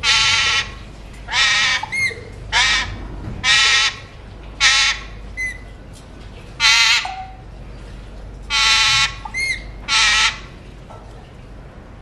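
Alexandrine parakeet giving eight loud, harsh calls of about half a second each over the first ten seconds, with a few short rising whistles between them.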